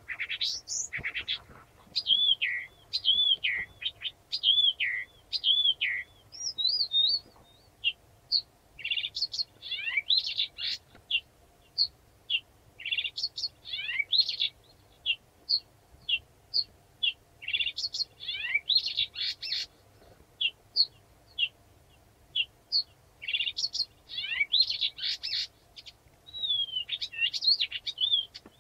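Blyth's reed warbler singing: a long, continuous run of varied short phrases of high, gliding notes, with motifs repeated several times in a row and short pauses between phrases.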